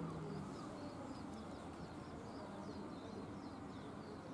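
Faint chirping of small birds: a quick series of short, high chirps that each slide down in pitch, over a low background murmur.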